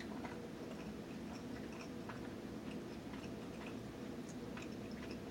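Person chewing a large mouthful of food with the mouth closed: quiet, irregular small wet clicks.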